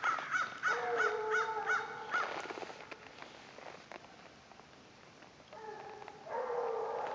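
Hounds baying on an old fox's scent line: a quick run of short, arching barks with a longer drawn-out bawl under them in the first two seconds, then a lull, and more drawn-out baying near the end.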